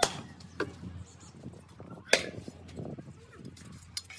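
Sharp metal knocks from steel bars being worked against a steaming sand casting mold and its steel flask: two loud strikes, at the start and about two seconds in, and two lighter ones, with faint voices under them.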